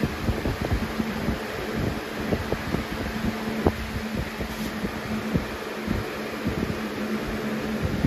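Lasko 3733 box fan running on its medium speed: a steady rush of air with a low motor hum. Its airflow buffets the microphone in irregular low gusts.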